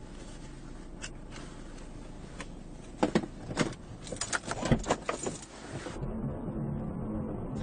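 Low steady hum inside a stopped car, broken by a couple of single clicks and then, about three seconds in, a run of sharp clicks and rattles. About six seconds in, the sound cuts abruptly to the low rumble of a car driving along a road.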